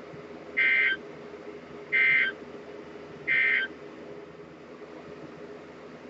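Three short bursts of NOAA Weather Radio EAS SAME digital data tones, a warbling two-tone data screech, a little over a second apart, over a faint steady hum. They are the end-of-message signal that closes a severe thunderstorm warning broadcast.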